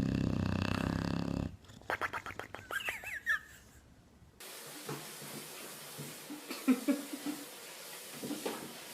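A household pet making a loud, steady, low pitched sound for about a second and a half, followed by a run of clicks and a short gliding high-pitched call.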